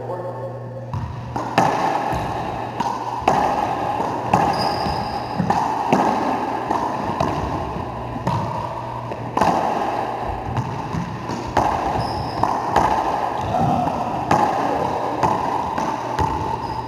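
Racquetball rally: the ball cracks off racquets and the court walls every second or so, each hit echoing around the enclosed court.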